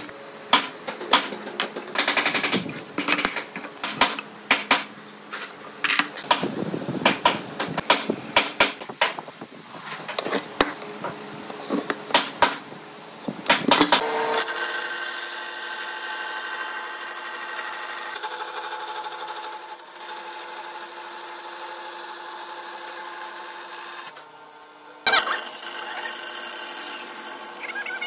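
Wood and hand tools being handled on a workbench: a string of sharp, irregular clicks and knocks. About halfway through, the sound gives way abruptly to the steady running of a band saw ripping lengthwise through a pine board.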